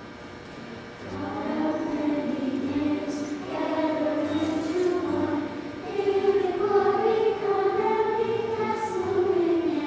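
Children's choir singing together, the voices coming in about a second in and holding sustained, moving notes.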